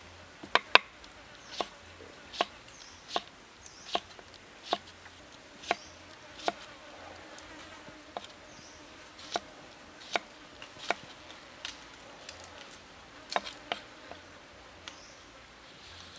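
Kitchen knife slicing a cucumber on a wooden stump chopping block: a sharp knock of the blade on the wood with each cut, about one every second, the first two loudest, with a short pause partway through.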